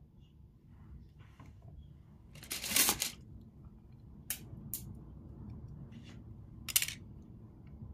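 Kitchen handling sounds: a short, loud rustle of a plastic wrapper about three seconds in, then a few sharp light clicks as thin wooden skewers are handled on the cutting board.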